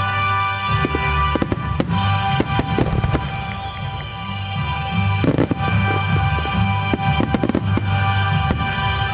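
Aerial firework shells bursting, with many sharp cracks and a heavier boom about five seconds in, over loud music playing along with the display.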